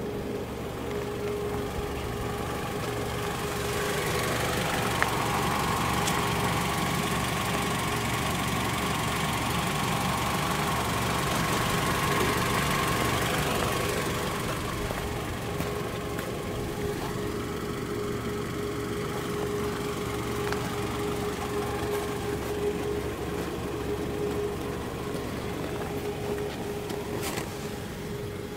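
The Mitsubishi ASX's 2.0-litre 4B11 MIVEC inline-four idling steadily, heard from outside the car. It grows louder about four seconds in and eases back about ten seconds later.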